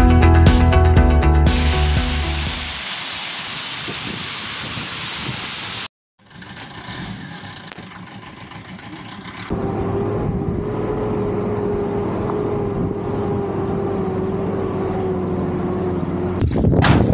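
Background music that ends in the first couple of seconds, then, after a brief gap, a Mercedes-Benz 208 D minibus running as it drives over a rough dirt track, with a steady whine over the engine noise.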